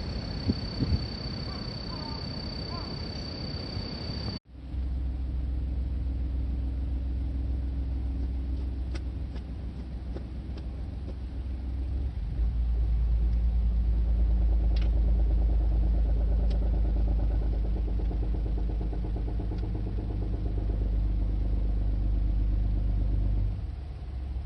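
Car on the move: a steady low engine and road rumble that grows louder about twelve seconds in and eases off near the end. It is preceded by a few seconds of outdoor wind-like noise with a thin steady high whine, which cuts off suddenly.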